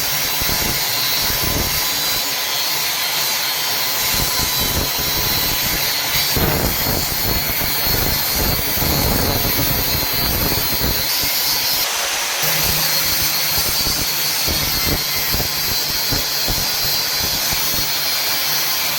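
Power cutting machine cutting through iron: a loud, steady, hissing metal-cutting noise, with a low hum joining about twelve seconds in.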